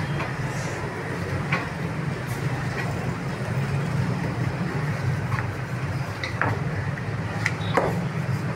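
Steady street traffic noise with a constant low hum, and a few faint short clicks.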